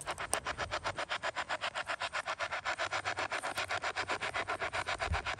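Handheld spirit box radio scanner sweeping rapidly through stations: an even chopping of static, about ten short bursts a second.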